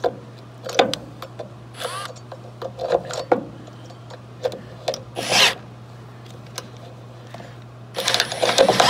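Cordless drill with a twist bit boring through the truck flatbed, enlarging a pilot hole. Scattered light clicks and a few short bursts come first, then the drill runs loudly under load starting about eight seconds in.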